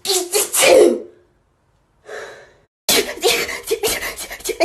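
A girl sneezing in a rapid fit: a few quick voiced sneezes, a pause with a breathy gasp about two seconds in, then a fast unbroken run of sneezes, several a second.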